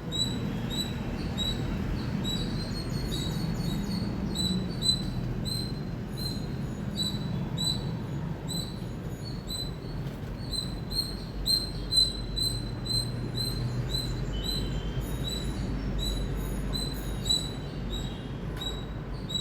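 Indian palm squirrel chirping: a long run of short, high, sharp calls at about three a second, with a few louder chirps around the middle.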